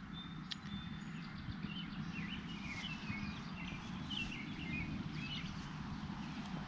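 Small birds chirping in quick short trills over a steady low background rumble.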